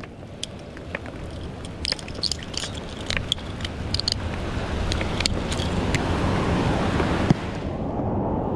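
Wind buffeting the microphone over the wash of surf, which swells up loudest in the second half. A run of sharp clicks and metallic clinks comes in the middle, like tackle being handled.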